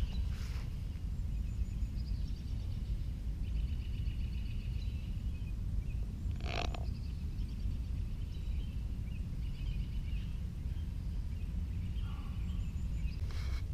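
Outdoor backyard ambience: a steady low rumble of wind on the microphone, with small birds trilling repeatedly in the background. One short, sharp sound about halfway through.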